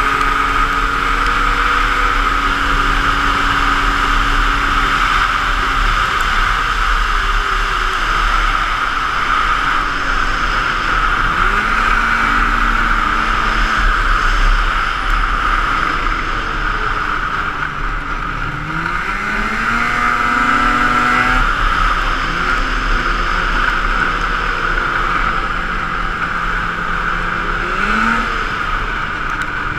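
Snowmobile engine running under way, its pitch falling as the throttle eases off and climbing again several times, over a steady rush of wind on the microphone.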